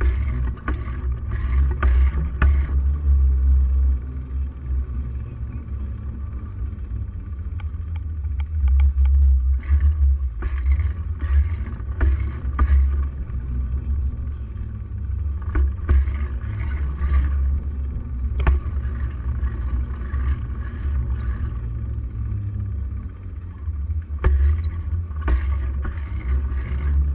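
Riding noise from a handlebar-mounted camera on a moving bicycle: a steady low rumble of wind and road vibration on the microphone, with scattered clicks and rattles.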